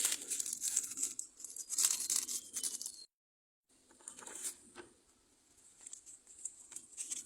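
Packaging being torn open and handled, with noisy tearing and crinkling. It breaks off abruptly about three seconds in, then resumes as quieter rustling with a few sharp clicks.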